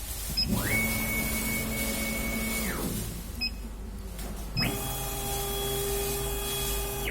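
Stepper motors of a KAMACH 1390 CO2 laser cutter driving the laser head across the bed: two moves, each a whine that rises in pitch as it speeds up, then holds steady for about two seconds. The first falls away about three seconds in; the second, higher-pitched, starts near the middle.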